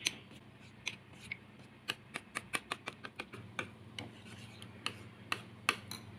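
Metal spoon clinking and scraping against a ceramic bowl while stirring a flour batter for stuffed tofu: a run of light, irregular taps, a few a second, coming quickest in the middle.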